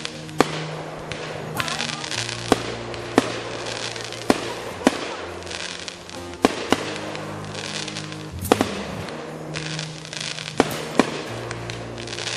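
Aerial fireworks bursting, a dozen or so sharp bangs spaced irregularly about a second apart, over electronic music with held bass notes.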